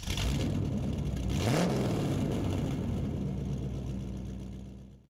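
Car engine that starts abruptly, revs once with a rising pitch about a second and a half in, then runs steadily and fades out.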